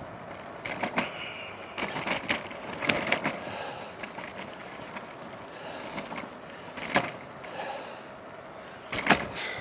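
Bicycle rattling and knocking over bumps and cracks in a rough road surface, several irregular jolts over a steady hiss of tyre and wind noise.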